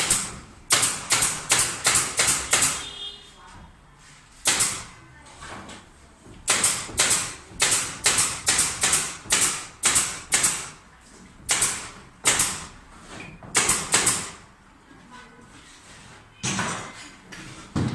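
Repeated hammer blows, in quick runs of several sharp strikes about three a second with short pauses between runs.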